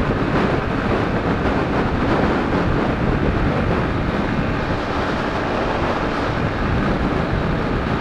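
Steady rush of strong crosswind buffeting the microphone of a Yamaha Crosser 150 motorcycle cruising at about 100 km/h, with road noise underneath.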